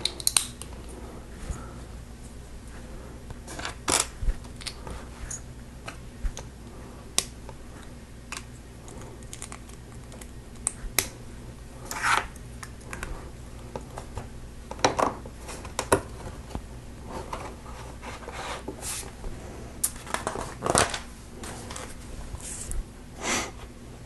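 Plastic Lego bricks and plates being handled and pressed together: scattered sharp clicks and short scrapes, irregularly spaced, over a low steady hum.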